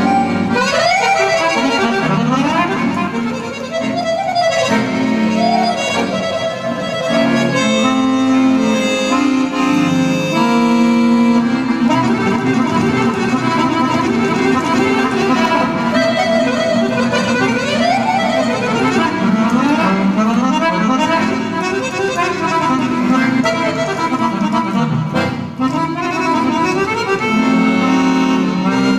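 Weltmeister piano accordion played live into a hand-held microphone: a lively instrumental melody full of quick runs of notes rising and falling.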